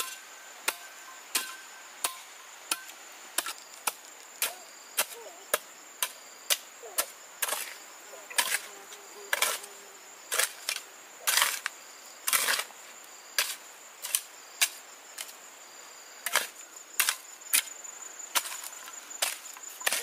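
Rhythmic chopping with a blade, sharp strokes about one and a half to two a second, with a few heavier, longer strokes about halfway through.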